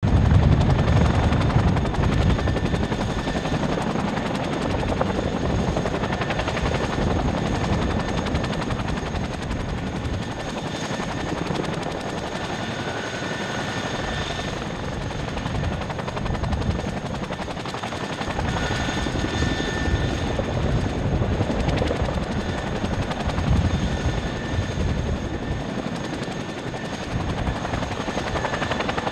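Two CH-47 Chinook tandem-rotor helicopters running close by, one on the ground with rotors turning and one hovering low: a rapid thudding of rotor blades under a steady high turbine whine, loudest in the first couple of seconds.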